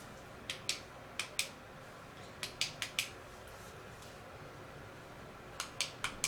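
Push-button switch of a Husky 1,000-lumen flashlight clicked repeatedly to cycle through its LED modes. Sharp clicks come in quick pairs, press and release, in three bunches: four near the start, four around the middle and four near the end.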